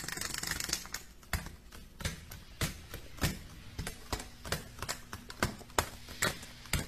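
Sharp, irregular taps and clicks on a hard tile floor, about one or two a second, as small parrots hop and scuffle about.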